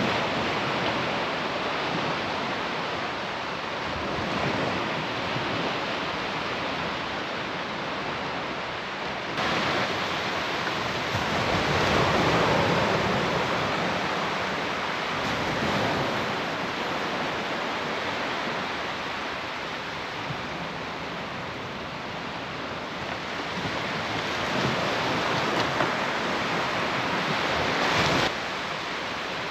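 Surf breaking and washing on a sandy beach, swelling and easing every few seconds, with wind buffeting the microphone.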